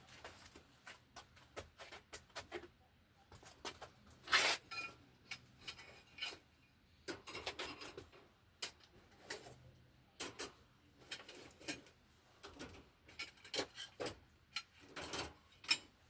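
Irregular handling noises: clicks, taps and rubbing of tools and hardware being handled, with sharper knocks about four seconds in and near the end.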